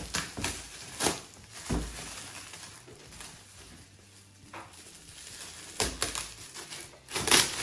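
Shiny gift-wrap paper being torn and crumpled as a present is unwrapped: a run of irregular rustles and rips, the loudest tear near the end.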